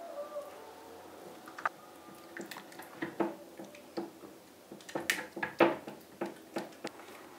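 Kitchen utensils tapping and scraping against a glass mixing bowl while scone batter is mixed: scattered light clicks and knocks that grow busier and louder in the second half.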